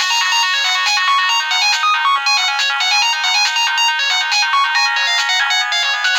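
Nokia 1800 mobile phone ringtone: a polyphonic melody of quick, steady notes, thin-sounding with no bass.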